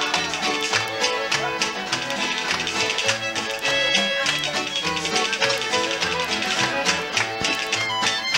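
Acoustic bluegrass jam: several acoustic guitars strumming a steady rhythm, with a fiddle playing the melody over them.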